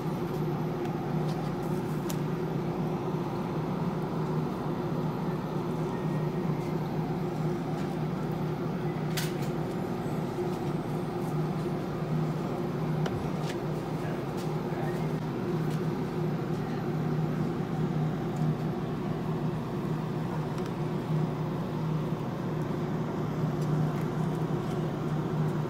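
Steady low machinery hum, like a kitchen's ventilation or refrigeration running, with a few faint clicks, the sharpest about nine seconds in.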